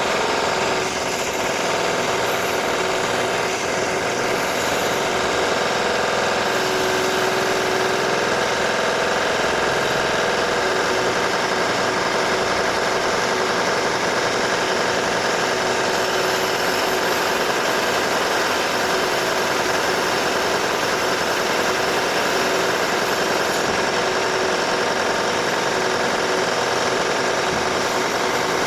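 Renovation drilling: a power drill running continuously, a steady mechanical drone with several held tones and no pauses.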